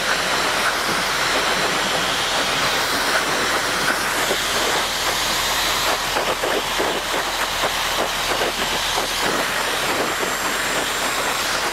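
Dyson Supersonic hair dryer blowing a steady rush of air into hair, the whoosh wavering slightly as it is moved across the head.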